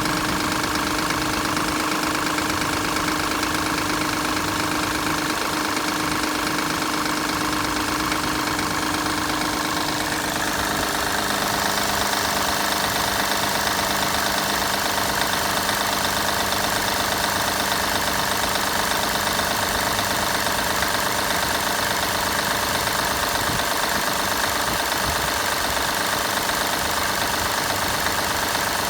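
Car engine idling after a cold start, with a steady mechanical noise carrying several whining tones; about ten seconds in the tones step down in pitch. The noise is a cold-start noise that goes away once the engine has warmed up.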